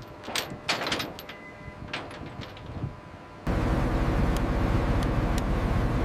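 Heavy-lift gear starting the lift: scattered metallic clanks and knocks, then about three and a half seconds in a loud, steady mechanical rumble starts suddenly and keeps going.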